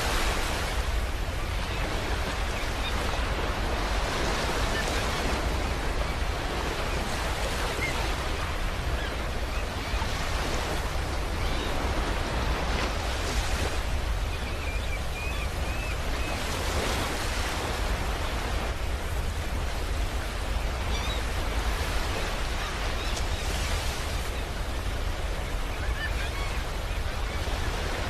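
Sea surf breaking on a sandy beach: a continuous rush of waves that swells and eases every few seconds, over a steady low rumble.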